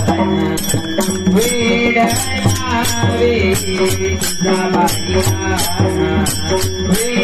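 Devotional bhajan: voices singing a chanted refrain over large brass taal hand cymbals clashing in a steady beat, with a rope-laced barrel drum (pakhawaj) keeping time.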